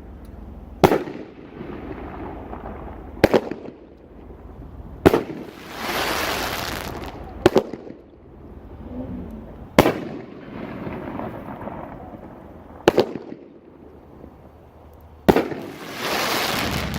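Consumer aerial fireworks cake, Big Fireworks' Nine, firing shot after shot: seven sharp bangs at roughly two- to three-second intervals. Two of the shots, about five seconds in and near the end, are followed by a couple of seconds of crackling hiss.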